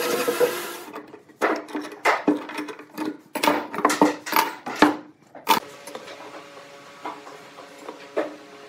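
Handsaw strokes through pine for under a second, then a run of sharp metallic clanks with a short ring as steel C-clamps are handled and set down on a wooden workbench, followed by a few light knocks.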